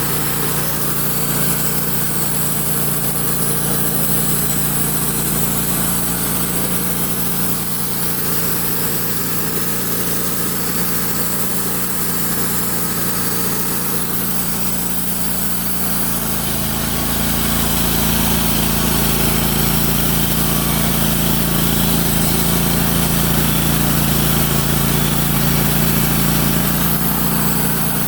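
Small petrol engine of a portable sawmill running steadily. About sixteen seconds in its sound deepens and grows a little louder, and stays that way.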